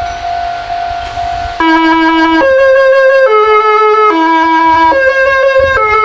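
Meitetsu 8800 series Panorama DX's music horn playing its melody. After a steady tone, it sounds loudly from about a second and a half in, as a repeating tune of sustained notes that change about every 0.8 s.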